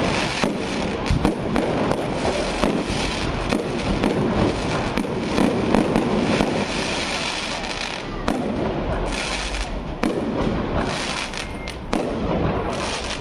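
Aerial fireworks bursting overhead: a rapid, irregular string of bangs and crackles over a continuous rumble.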